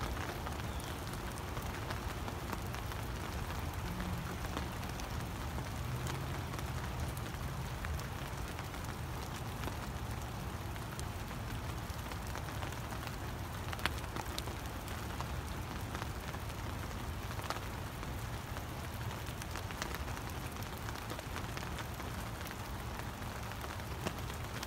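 Steady rain falling on wet leaves and ground, with scattered individual drips ticking through it and one sharper drip about 14 seconds in.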